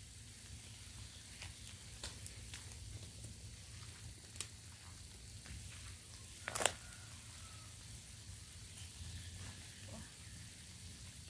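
Steady background hiss, broken by a few sharp clicks and rustles as a person walks close by carrying a sack and sets it down. The loudest crackle comes about six and a half seconds in.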